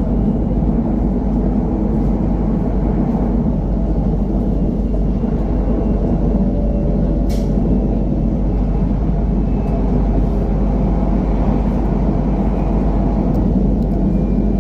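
Steady running noise inside a moving KTM ETS Class 93/2 electric train: a constant low rumble of the wheels on the track, with one sharp click about halfway through.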